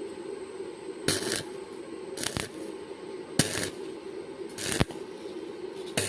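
Short, sharp metallic bursts about once a second, five in all, over a steady low hum, from stick-welding work on a steel shed frame.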